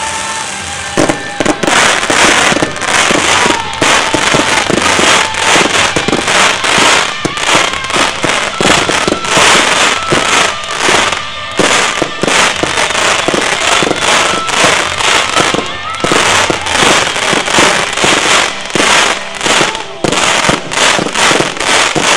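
Fireworks display: pyrotechnic ground fountains hiss, then about a second in a dense, continuous barrage begins of sharp launch bangs and crackles as comets shoot up, several reports a second without let-up.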